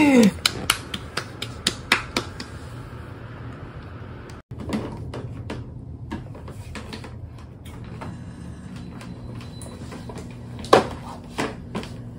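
Irregular sharp clicks and light taps over a steady low hum, several in quick succession at first, then sparser, with one louder click near the end.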